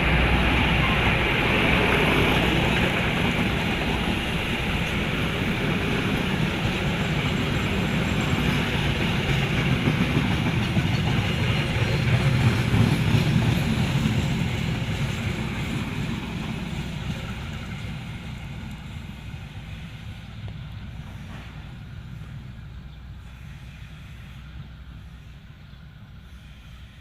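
A train rolling past on the rails. It runs loud and even for about the first half, then fades gradually as it moves away.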